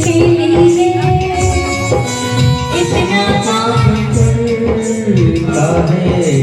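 Devotional bhajan music: a sustained melody line over a steady drum rhythm, with some singing.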